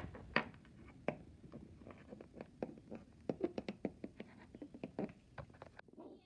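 Plastic toy horse figurines tapped and shuffled across a wooden floor: an irregular run of light clicks and knocks, several a second.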